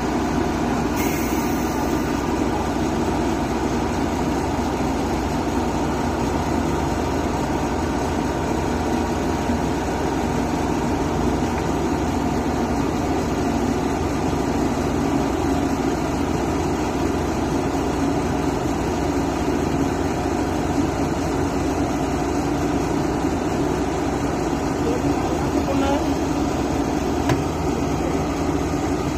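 Hyundai crawler excavator's diesel engine running steadily as the machine is driven down off a flatbed trailer.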